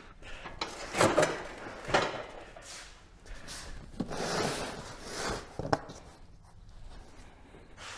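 Heavy wooden crate being shifted and handled: a few sharp knocks, the loudest about a second and two seconds in, and a longer scraping rub around the middle, then another knock.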